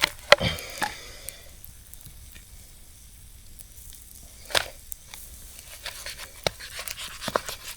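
Steak cooking on a grill over campfire coals: a faint sizzle with scattered sharp crackles and clicks, the loudest just after the start and another about halfway through.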